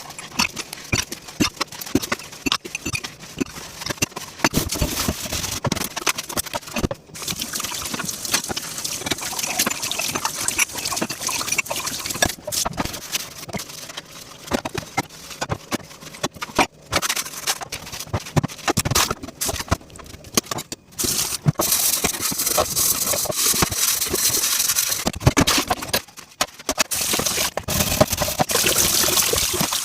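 Dishes being washed by hand at a sink: repeated clinks and clatters of plates and utensils knocking together, with stretches of running tap water.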